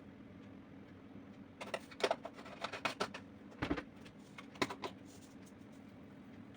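Kitchen handling sounds: a run of sharp clicks and taps from things being handled, with one duller knock partway through, over a steady low hum.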